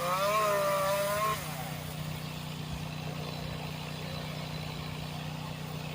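Small petrol engine running steadily at a low idle. A brief wavering pitched sound rides over it in the first second and a half, then drops away.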